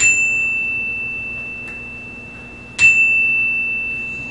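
Handheld single-tone chime struck twice with a small mallet, about three seconds apart. Each strike rings one clear, high tone that fades slowly, with a brief brighter overtone at the moment of the strike.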